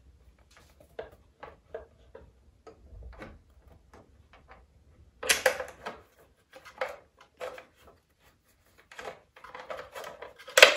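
Short clicks and light clatter of plastic fairing parts and small screws being handled as a motorcycle flyscreen is fitted over the instrument cluster and its screws are started by hand. There is a louder cluster of knocks about five seconds in and a quick run of clicks near the end.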